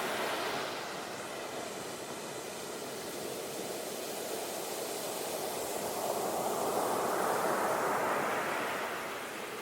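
Ocean surf washing on a shore: a steady rush of waves that swells to a peak about seven seconds in, then eases off.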